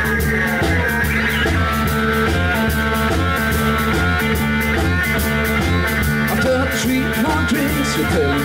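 Live blues-rock band playing an instrumental passage: lap steel guitar played with a slide, gliding between notes, over electric bass and a drum kit keeping a steady beat.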